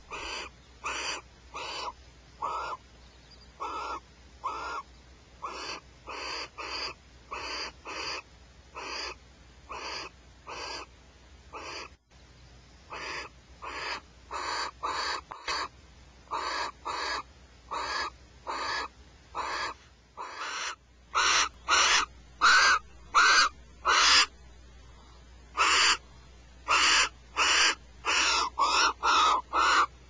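Barn owl calling in the nest cavity: short, harsh screeching calls repeated about two a second, with a brief pause partway and growing much louder about two-thirds of the way through.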